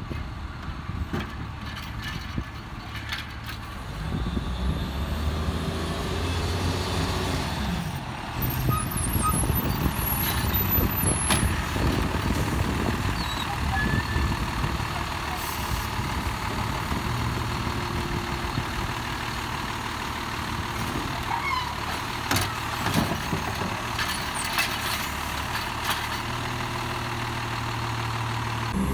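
2009 Autocar Autoreach automated side-loader garbage truck at work: the diesel engine runs under load, louder from about four seconds in, while the hydraulic arm lifts a wheeled trash cart over the hopper, tips it and lowers it back down. Sharp clunks and knocks come near the end as the cart is shaken out and set down.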